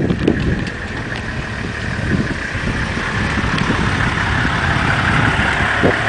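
Vehicle engine idling steadily, with a low rumble and a steady hiss, as from a game-drive vehicle stopped to watch elephants.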